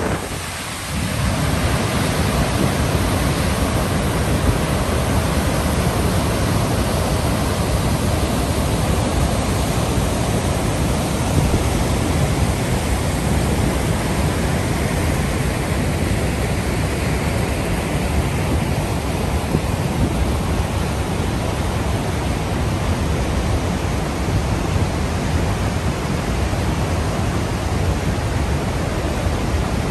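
Creek cascades pouring over rock ledges into churning whitewater rapids: a loud, steady rush of falling and tumbling water, a little softer for the first second.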